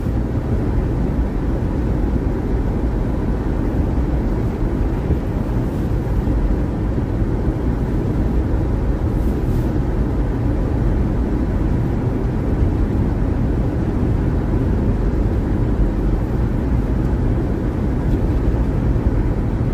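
Steady low road rumble inside a moving car's cabin: tyres on a snowy winter road and the engine.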